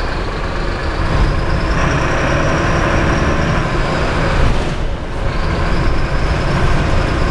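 Diesel engine and road noise of a Mercedes-Benz city bus, heard from the driver's seat as it drives slowly, with a brief dip in the sound about five seconds in.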